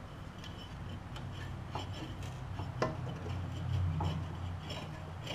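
Light metallic clicks and clinks of lawn tractor mower deck parts being handled, four or so spread out, over a low steady hum.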